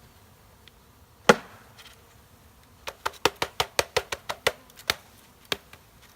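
Bee package being knocked and jolted against the hive to shake the bees out: one sharp knock about a second in, then a quick run of about a dozen knocks, about five a second, and one more near the end. Faint honeybee buzzing underneath.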